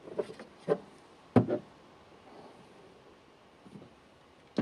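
Vinyl toy figures being set down on a tabletop: a few short knocks in the first second and a half, the loudest about a second and a half in, and one more at the end.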